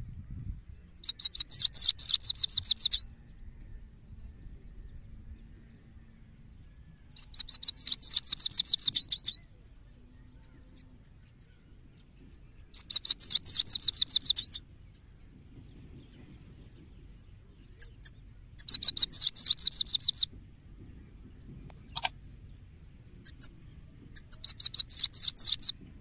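Male European goldfinch singing: five bursts of rapid high twittering, each about two seconds long, spaced five to six seconds apart, with a few short single notes between the bursts.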